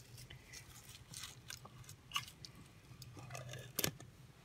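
Light handling noises: rustling and crinkling of an organza bag and packaging, with scattered small clicks and knocks as a glass jar and items are handled over a wooden box, and one sharper knock a little before the end.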